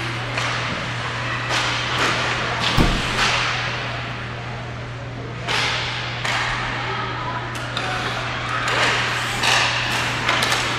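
Ice hockey play in an indoor rink: skate blades scraping the ice in hissy swells and sticks clacking on the puck and on each other, with the sharpest knock about three seconds in, over a steady low hum.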